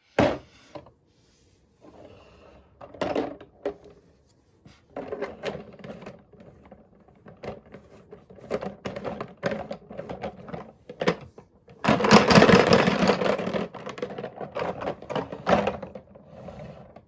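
Marbles rolling and clattering through a wooden HABA marble run, with scattered clicks and knocks. A dense, loud rattle starts about twelve seconds in and lasts about two seconds.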